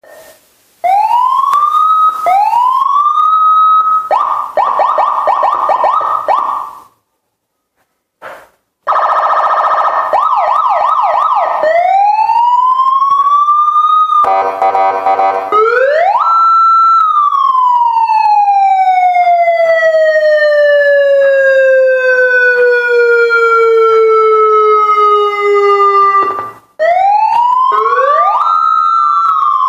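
Electronic multi-tone siren horn (a 15-sound, 5-tone klakson module) cycling through siren patterns. Two rising whoops open it, followed by a fast warbling yelp. After a break of about two seconds comes another fast warble, then a rising whoop, a rapid warble, and a long slow falling wail. Near the end it rises and falls again.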